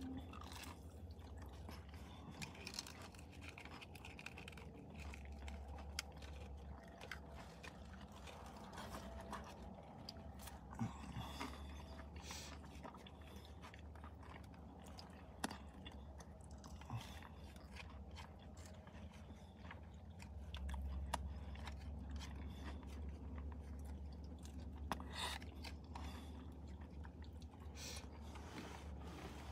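Close-up chewing and biting of fast food, starting with a chicken nugget: soft wet mouth sounds with small crunches and clicks scattered all through. A steady low hum runs underneath and gets louder about two-thirds of the way in.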